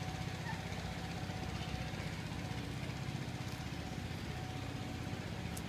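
A steady low mechanical hum, like a running engine, at an even level throughout.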